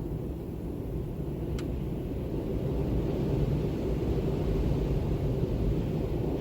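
Low, steady wind rumble that swells into a stronger, hissier gust about three seconds in.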